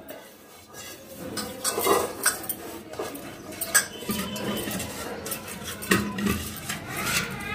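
Hand-greasing a metal pot with oil: fingers rubbing and squeaking around its inner wall, with irregular knocks and scrapes as the pot is turned and handled.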